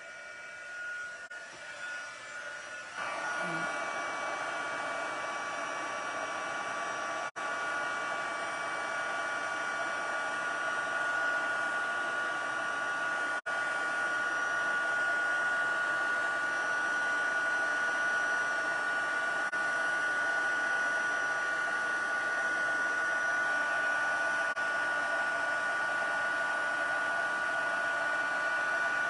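Handheld embossing heat tool blowing hot air with a steady, even hum, melting white heat embossing powder on a paper sentiment strip. It gets louder about three seconds in, then holds steady.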